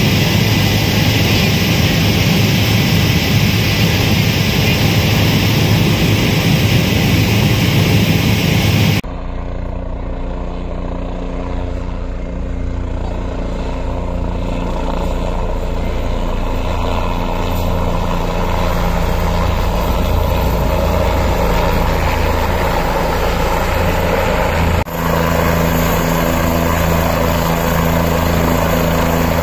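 Helicopter noise in three shots. First a loud, steady turbine-and-rotor drone heard inside the cabin in flight. About nine seconds in it cuts to a helicopter heard from the ground, a quieter steady low hum that slowly grows louder, and about 25 seconds in it cuts to a helicopter running on the helipad, a steady low drone with a thin high whine.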